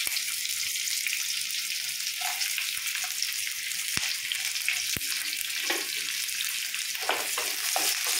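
Roughly chopped onions sizzling as they fry in hot mustard oil in a kadhai, a steady crackling hiss with a couple of sharp pops about four and five seconds in. The onions have just gone into the hot oil and are being fried until transparent for the gravy base.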